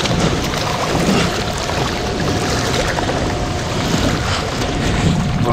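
Steady rush of fast-flowing river water with wind on the microphone, and splashing as a large catfish thrashes in the shallows while held by the lip.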